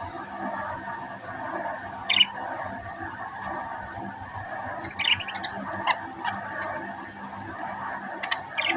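Budgerigars giving short, sharp chirps: one about two seconds in, a few around five to six seconds, and more near the end, over a steady background noise.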